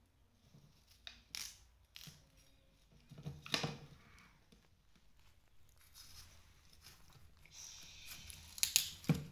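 Large kitchen knife slicing through watermelon: several short, crisp crunching cuts through the rind and flesh. The loudest comes about three and a half seconds in, and another loud cut near the end ends in a knock of the blade on the table.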